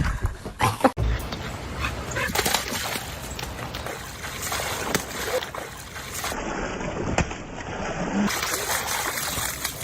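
A dog splashing in water, a steady rushing and sloshing noise from about a second in.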